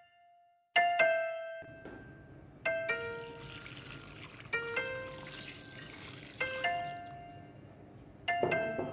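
Milk tea poured from a jug into a glass bowl of tapioca pearls and sweet potato cubes, a splashing pour that starts about a second and a half in and grows fuller. Background music of spaced chiming notes plays over it.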